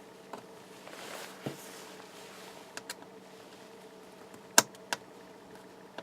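Light clicks and taps of a small screwdriver and tiny screws as a laptop's screen-mounting screws are loosened and set aside, the sharpest click a little after halfway with another just after it. A faint steady hum runs underneath.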